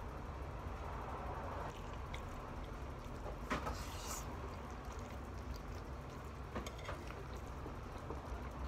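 Quiet dining-room tone with a steady low hum. About three and a half seconds in comes a brief knock and a short hiss as a glass beer bottle is handled at the table, and a few small clicks follow later.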